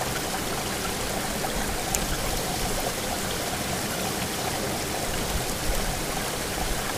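Steady sound of flowing water.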